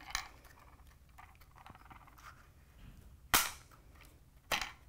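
Rotary knob of an IMO PV DC isolator switch snapping over to the on position: one sharp click about three seconds in, then a second, quieter click about a second later.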